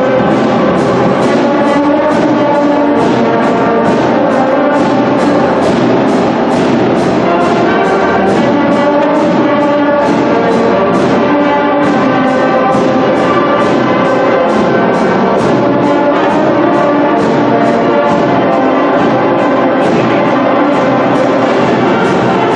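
Music played by brass instruments over a steady beat of about two pulses a second.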